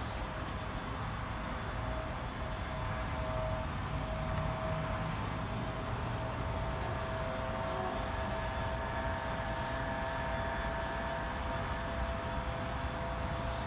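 Airbus A319 jet engines running on departure: a steady whine of several tones over a low rumble.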